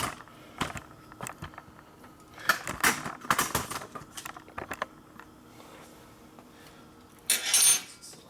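Metal hand tools clinking and rattling in a series of sharp clicks, then a short, louder metallic rattle near the end.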